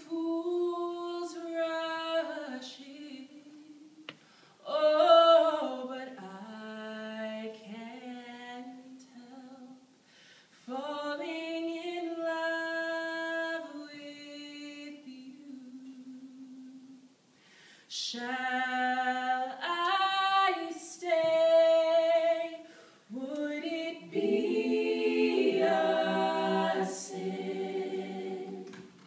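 A cappella singing: a single voice sings slow, held phrases with short pauses between them, and in the last few seconds more voices come in underneath in harmony.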